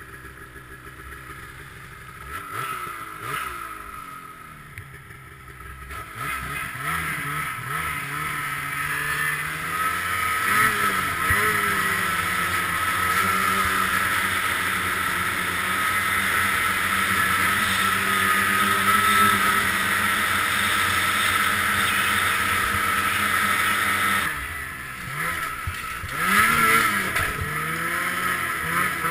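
Ski-Doo snowmobile's 800R two-stroke twin engine under way: it revs up over the first few seconds, then runs at a steady high pitch while cruising, briefly eases off, and revs up again near the end, over a steady hiss.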